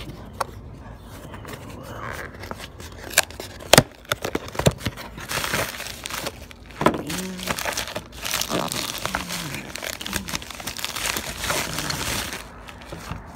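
Unpacking a mailing parcel: a cardboard shipping box opened with several sharp snaps and knocks, then a white plastic Priority Mail envelope crinkling and rustling for several seconds as it is pulled out and handled.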